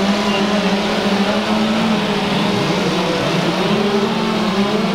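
Gasoline chainsaws running at high revs while carving wood, a steady engine drone with several saws going at once.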